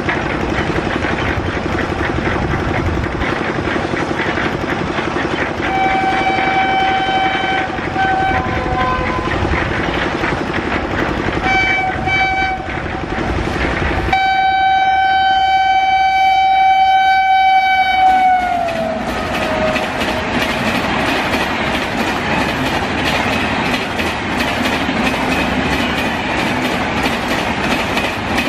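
An electric WAP7 locomotive and its passenger train running through at about 130 km/h. The horn sounds in several blasts, then one long blast of about four seconds whose pitch drops as the locomotive passes. After that comes the fast clatter of the coaches' wheels over the rail joints.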